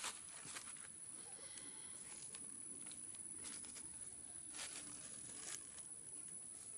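Faint scattered crackles and rustles of dry leaf litter being stepped on, over a steady outdoor hiss; the sharpest crackle comes right at the start, with a few more about three and a half and five seconds in.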